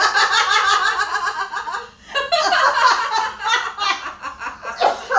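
Women laughing hard in rapid, high-pitched giggles that break off briefly about two seconds in and then start up again.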